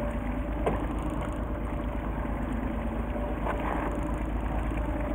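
Steady rumble of a fishing boat's engine idling, with a single sharp click about two-thirds of a second in.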